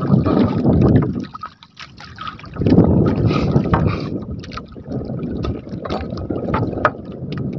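Wind buffeting the phone microphone over water lapping around a small outrigger boat. There is a rumbling, unpitched noise with scattered small knocks, and a short lull about a second in.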